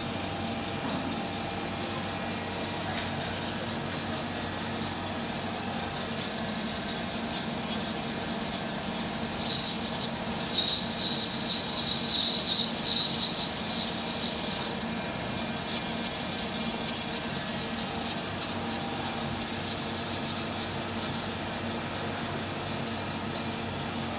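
CNC lathe running with a steady hum and a thin high tone. From about ten to fifteen seconds in, a louder high, wavering squeal joins it, followed by fast fine ticking for several seconds.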